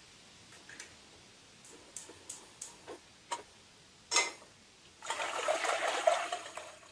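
Water poured from a kettle into an empty stainless steel pot, filling a water bath: a loud splashing gush lasting about two seconds near the end. Before it come a few light clicks and one sharper knock as the pots are handled on the stove.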